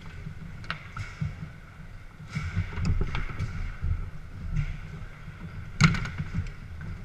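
Garlando foosball table in play: the rods slide and thud in their bearings, and the ball gives sharp clacks as it is struck and hits the table, the loudest knock about six seconds in.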